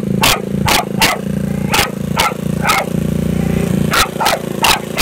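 A dog barking in quick repeated barks, about two a second with a short pause midway, over the steady idle of a GY6 scooter's four-stroke single-cylinder engine.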